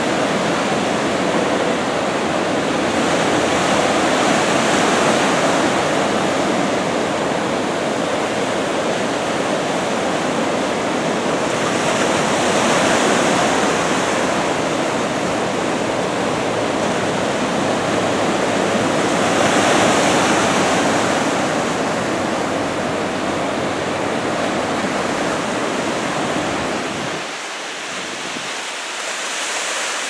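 Ocean surf from a head-to-shoulder-high typhoon swell breaking steadily, a continuous wash of whitewater that swells louder a few times. The deeper rumble drops away near the end.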